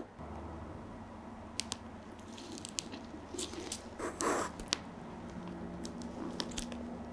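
Orange segments and banana being squashed under a black patent high-heeled shoe on a hard floor: wet squelching and crackling, with scattered clicks and a louder squish about four seconds in.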